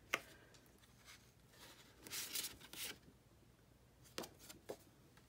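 Double-sided 4x6 paper cards handled by hand: a sharp tap at the start, a papery rustle about two seconds in, and two light taps near the end.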